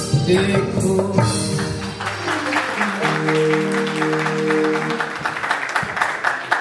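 Live qawwali-style music with dholak drum strokes, giving way about two seconds in to an audience clapping and applauding. A steady chord is held over the clapping for about two seconds in the middle.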